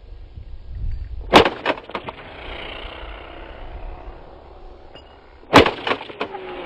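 Two suppressed rifle shots from a Vulkan-M bullpup AK firing reduced-velocity cartridges, about four seconds apart. Each shot is followed by a few quieter sharp reports within half a second.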